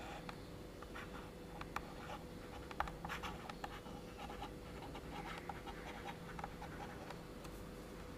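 Stylus writing on a touchscreen: faint, irregular taps and short scratches as words are handwritten, over a steady low hum.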